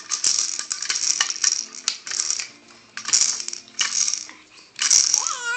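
Small hard objects clinking and rattling in irregular bursts, much as when a toy rattle is shaken. Near the end a young child's voice cries out, falling in pitch.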